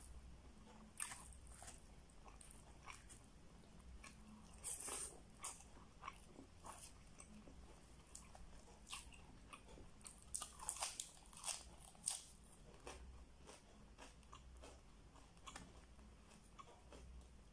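Quiet chewing and mouth sounds of someone eating spicy chicken adobo with rice: irregular soft clicks and lip smacks, busiest about five seconds in and again between ten and twelve seconds in.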